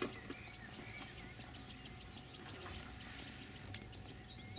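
Small birds chirping and singing, with a fast, even trill lasting about a second, starting about a second in.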